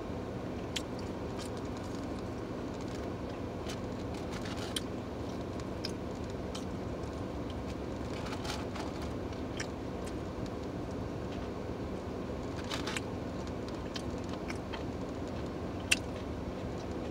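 Steady low hum inside a car, with scattered faint clicks and crinkles of someone eating out of a takeout container.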